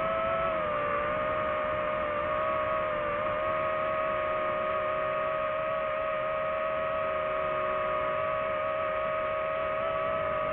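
DJI FPV drone's motors and propellers whining steadily at a held pitch, dipping slightly about a second in.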